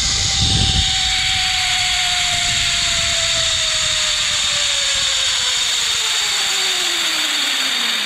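Zipline trolley pulleys running along the steel cable: a steady whir and hiss with one tone that falls steadily in pitch as the trolley slows toward the end of the line. Wind rumbles on the microphone for about the first second.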